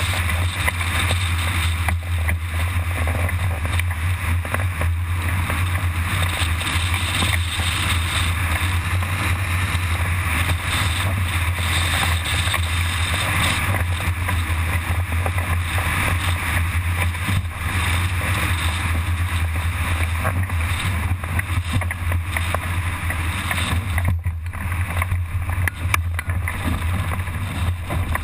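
Airflow buffeting the microphone of a camera mounted on a hang glider in flight: a steady loud rushing with a deep rumble underneath, the hiss thinning a little near the end as the glider comes in to land.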